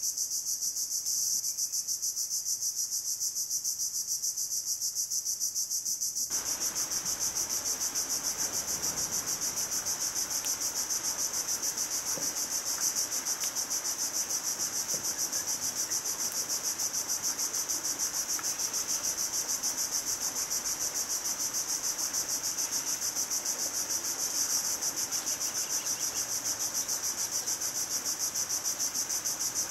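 Steady, high-pitched insect chorus with a fast even pulsing, running unchanged throughout. A faint, lower background hiss comes in about six seconds in.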